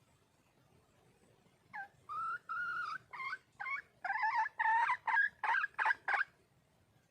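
Red junglefowl hen calling for a mate: about a dozen short pitched calls, two longer ones first, then a quicker run of shorter ones.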